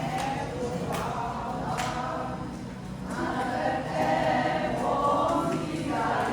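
A choir of several voices singing together in a sustained melody.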